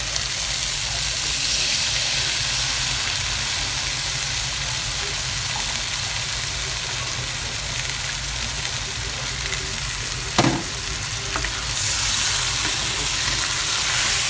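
Prawns in curry paste sizzling and frying in a hot wok as tamarind juice is poured in and a wooden spatula stirs, a steady frying hiss. One sharp knock about ten seconds in, and the sizzle grows brighter near the end.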